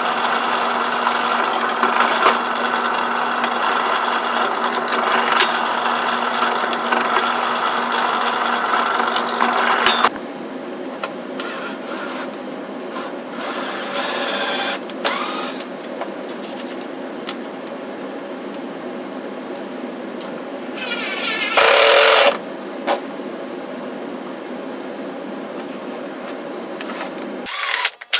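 A small electric power tool runs steadily with a constant motor hum, then stops abruptly about ten seconds in. Quieter workshop handling noises follow, with one short, louder burst of the tool a little past the twenty-second mark.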